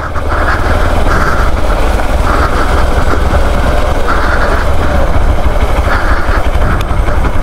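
Hero Xpulse 200 motorcycle's single-cylinder engine running as the bike is ridden over a rough, overgrown dirt trail, with a heavy, steady low rumble.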